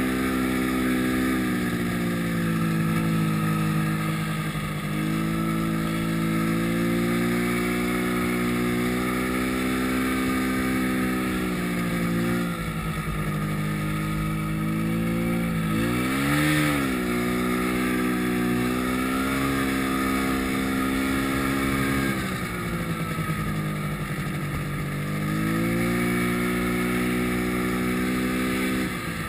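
Yamaha snowmobile engine running under throttle through deep powder, its pitch easing down and climbing back several times as the throttle changes. About halfway through it gives one sharp rev up and straight back down.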